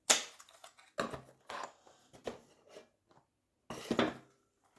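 Metal parts of a watch caseback opener tool being handled: a series of short knocks and clatters with quiet pauses between them.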